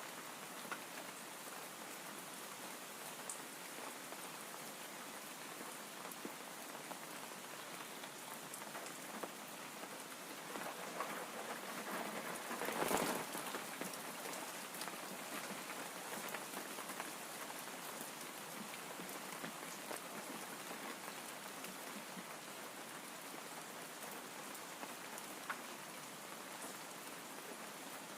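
Steady rain, a soft even hiss with a few faint drop clicks, swelling louder for a few seconds about halfway through.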